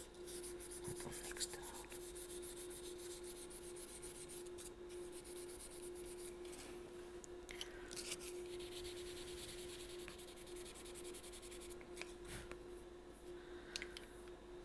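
Fine sandpaper rubbed by hand over the wooden body of an Albert-system clarinet around the thumb-rest, smoothing the spot: a soft, steady scratchy hiss with uneven strokes.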